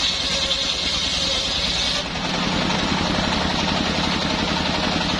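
Engine-driven homemade circular sawmill running, its large blade ripping a hardwood board lengthwise over a steady engine beat. About two seconds in, the high cutting sound stops while the engine and spinning blade keep running.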